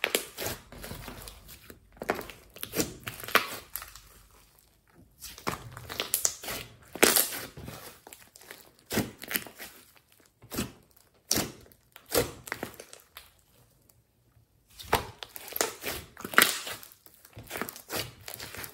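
Hands squeezing and kneading glossy slime mixed with clay, making irregular runs of sticky clicks and crackling pops with brief pauses between handfuls.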